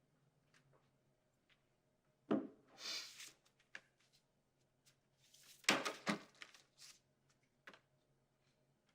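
Scattered small knocks and rustling of objects being handled, with two louder bursts of clatter and rustle about two and six seconds in, over a low steady hum.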